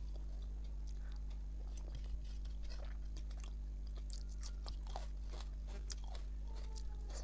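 Close-up chewing and small mouth clicks of someone eating rice with dal and greens by hand, with fingers gathering the last grains on a paper plate. A steady low hum runs underneath.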